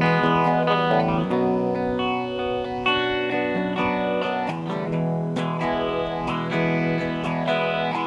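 Guitar played through effects, with chorus, ringing out sustained chords that change every second or so: an instrumental passage between sung lines.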